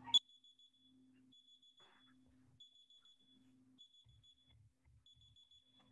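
Near silence, with a faint high-pitched whine coming and going in short stretches, and one click right at the start.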